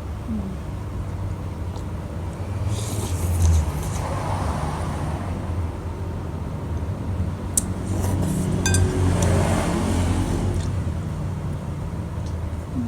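Road traffic with a steady low rumble and two vehicles passing, about four and nine seconds in. A few short crackles and sharp clicks come in between.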